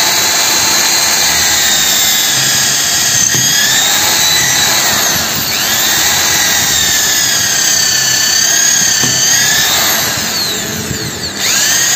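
300 W Buildskill corded electric pistol-grip drill running at speed, boring holes into a wooden block; the motor whine wavers as the bit loads and unloads. Near the end it briefly eases off, then spins up again with a rising whine for the next hole.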